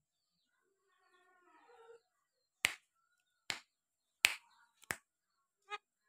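Caged Javan myna (jalak kebo) giving a soft warbling chatter, then four sharp loud clicks about three quarters of a second apart and a short rattling click near the end.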